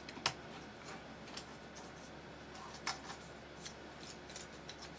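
A few scattered clicks and light rubbing of 3D-printed plastic parts being worked by hand, a leg piece moved in its joint that is stiff from a glob of super glue. The clearest clicks come just after the start and near three seconds.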